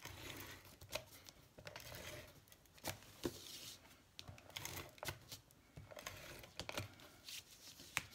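Fast Fuse adhesive roller drawn along the edges of a piece of cardstock: faint rasping strokes of the adhesive peeling onto the paper, with scattered light clicks and taps of the applicator and paper on the table.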